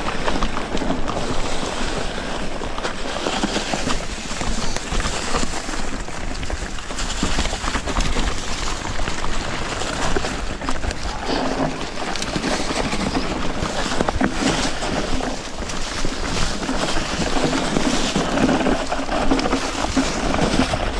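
Electric mountain bike riding a rough dirt trail: a steady rush of tyre noise with constant rattling and knocking from the bike over the bumps.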